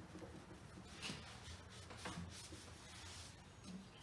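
Faint rubbing of a cloth towel wiping oil over a cast steel anvil, in a few soft strokes.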